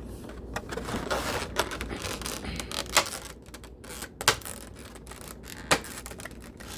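Plastic toy packaging and figure being handled: irregular sharp clicks and taps with some rustling, the loudest clicks spaced a second or more apart.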